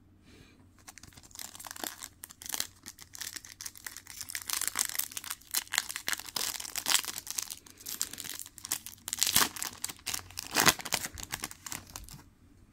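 Foil wrapper of a Topps Chrome UFC trading-card pack crinkling and being torn open in the hands, a dense run of crackles and rips, loudest at about nine and ten and a half seconds in. It stops shortly before the end.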